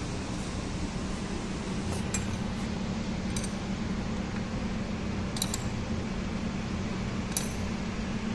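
Light metallic clinks of a spanner and feeler-gauge blades against the rocker arms and adjusting screws as valve tappet clearance is set, a few single clinks a second or two apart. A steady low hum runs underneath.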